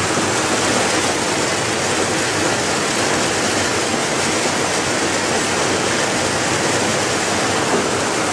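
Steady rushing hiss of watermelon seeds pouring in a dense stream from a belt-type colour sorter's outlet into a hopper.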